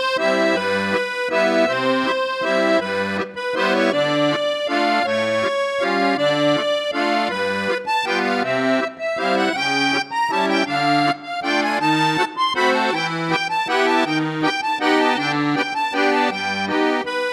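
Instrumental background music with a steady rhythm of low bass notes alternating with chords.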